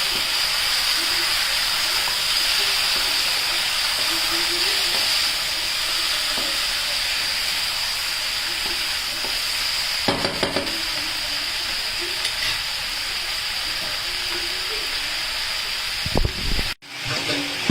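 Chicken pieces frying with browned onions in hot oil in a large kadhai: a steady sizzle, with a brief clatter about ten seconds in as the pan is stirred.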